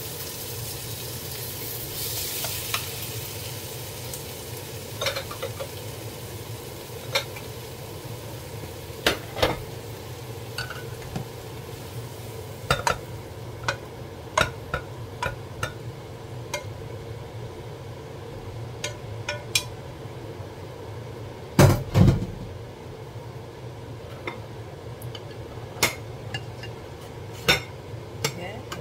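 Zucchini and onion sizzling in a nonstick frying pan as wooden chopsticks and a spatula stir and scrape, the sizzle fading after a few seconds. Then scattered clicks and knocks of wooden utensils, pan and glass containers, the loudest a double knock about 22 seconds in, over a low steady hum.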